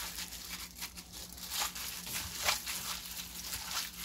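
Plastic-gloved hand kneading boiled siraegi (dried radish greens) with soybean paste and garlic in a nonstick wok: irregular soft crinkling, squishing strokes of glove and wet greens.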